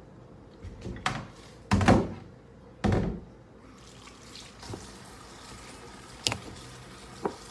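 Kitchen tap water splashing into a sink in three short bursts, the middle one the loudest. Near the end come two sharp knocks as a plastic container is handled on the counter.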